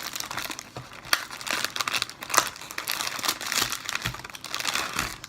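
Snack wrapper around a packaged sponge roll crinkling and tearing as it is opened and handled, a busy run of crackles and crisp snaps.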